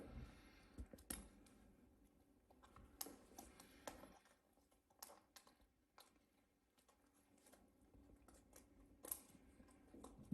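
Faint, scattered small clicks and taps, a few seconds apart, from laptop parts being handled during disassembly.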